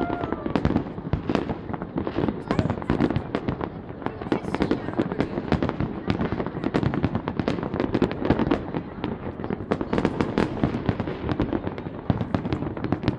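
Fireworks display: a dense, unbroken run of bangs and crackles as many shells burst one after another.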